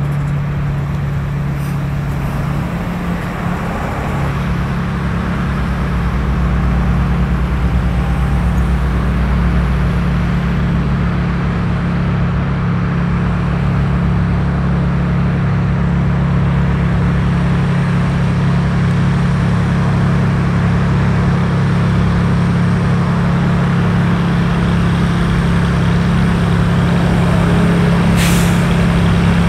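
Cessna 210's six-cylinder piston engine and propeller running at taxi power, a steady drone that grows slowly louder as the aircraft approaches. A brief hiss comes near the end.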